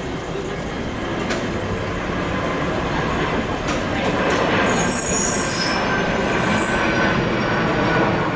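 Electric streetcar (1915 Twin City Rapid Transit car No. 265) rolling on its rails toward the listener, its running noise growing slightly louder. For a couple of seconds near the middle its steel wheels squeal high, the squeal stepping down in pitch.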